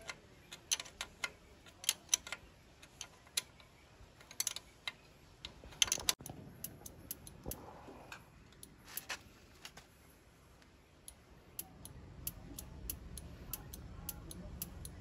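Sharp metallic clicks of a hand wrench working a bolt on a tractor engine, irregular at first, then a steadier run of about three clicks a second near the end.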